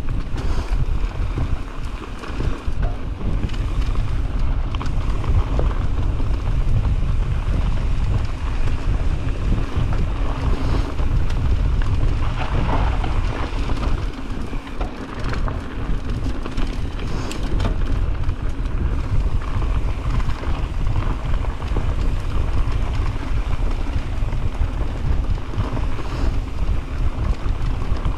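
Wind buffeting the microphone during a fast mountain-bike descent, with a continuous rush of tyres rolling over loose dirt and scattered knocks and rattles from the trail.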